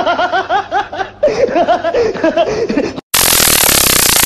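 Rapid high-pitched laughter, with a short break about a second in, stops about three seconds in. After a brief silence, a loud, steady burst of static hiss cuts in suddenly.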